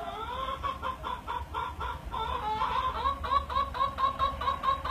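Rear tyre of a VN Holden Commodore squealing in a smoky burnout. The squeal rises at first, then chops into a steady pulse of about four to five chirps a second that sounds like a chicken clucking, growing louder toward the end.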